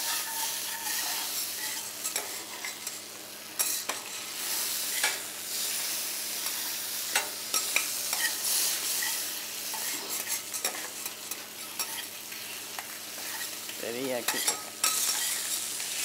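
Chicken pieces sizzling on a hot flat-top steel griddle, with metal spatulas scraping and clicking against the plate at irregular intervals as the pieces are turned and pressed.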